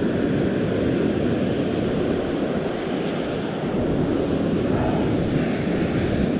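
Steady wind rushing over the microphone, mixed with the wash of surf.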